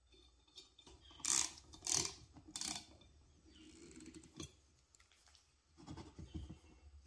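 Hand ratchet wrench tightening a bolt on a steel tubing clamp, with three short bursts of ratchet clicks about a second in. Near the end come light metal knocks as a steel tube is set into the clamp.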